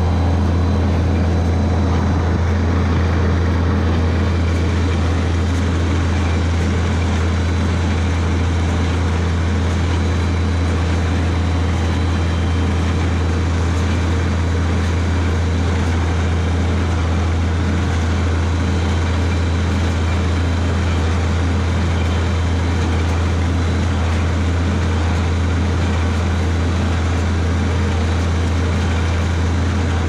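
Tractor engine running steadily under load as it pulls an International small square baler picking up hay, heard from the driver's seat; a constant low drone with the baler's working noise mixed in.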